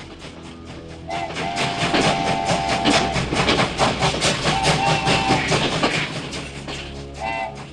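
Train passing, its wheels clattering on the rails in a quick, even rhythm that swells about a second in and eases off near the end, with held musical tones over it.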